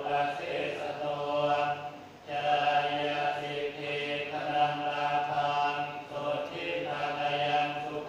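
A large group chanting Buddhist verses in unison on one steady low note, in long phrases broken by short pauses for breath about two seconds in and again past six seconds.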